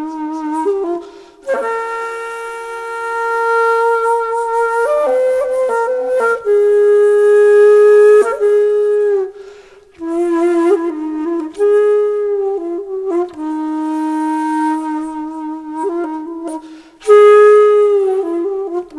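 Background music: a solo flute playing a slow melody of long held notes that bend and glide in pitch, broken by brief pauses between phrases.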